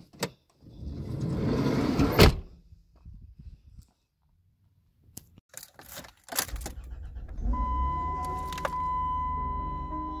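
A minivan's rear hatch swung shut, ending in a slam about two seconds in. After a pause keys rattle at the ignition, then the engine cranks and starts about six seconds in and settles into a steady idle, with a steady electronic warning tone joining a little later.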